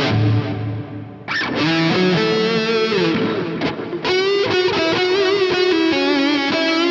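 Distorted electric guitar lead from a Gibson Les Paul through an Engl Fireball 25 tube amp, wet with reverb and delay from an EarthQuaker Devices Dispatch Master pedal. The notes are held and slide into one another, with wide vibrato about four seconds in.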